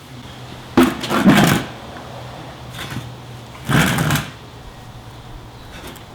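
Metal suspension parts and tools clattering and scraping in two loud bursts, about a second in and near four seconds, with a couple of fainter knocks, over a steady low hum.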